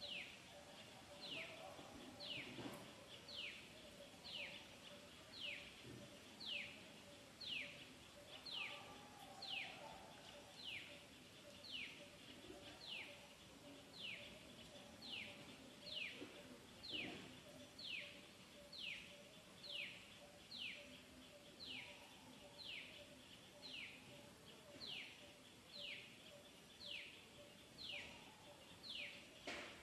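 A bird calling over and over, a short whistled note that slides down in pitch, about once a second, with faint outdoor background.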